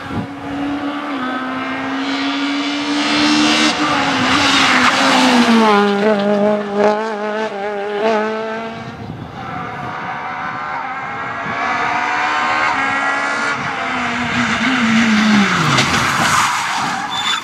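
Small rally cars driven hard on a tarmac stage, with engines revving high and the pitch climbing and dropping repeatedly through the gears. There is tyre squeal as a car slides through a corner, and the engine pitch falls sharply near the end as the revs drop in a slide.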